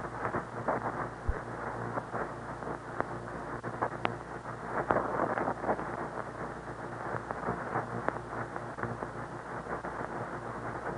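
Shortwave receiver static from a Realistic DX-302: a steady, muffled hiss with scattered crackles and pops, no clear station coming through.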